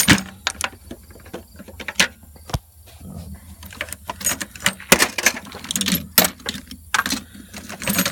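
Metal sockets and hand tools clinking and rattling against each other as they are handled in a toolbox drawer, in irregular sharp clinks.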